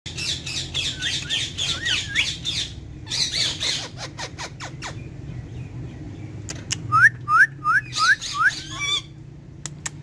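Indian ringneck parakeets squawking and chattering in quick, warbling calls, with some sharp clicks in the middle. About seven seconds in comes a run of five short rising whistled calls, about three a second, then more chatter.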